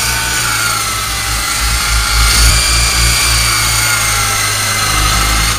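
Alloy Shark coaxial toy RC helicopter flying close by: its electric motors whine and the twin rotors buzz steadily, with the pitch wavering slightly.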